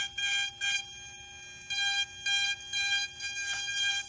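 RAM BP50 electric micromotor handpiece spinning a small pointed bit at its full 50,000 RPM: a steady high whine, broken by short bursts of cutting noise as the bit makes quick detail strokes in wood. There is a quieter stretch about a second in, with only the whine.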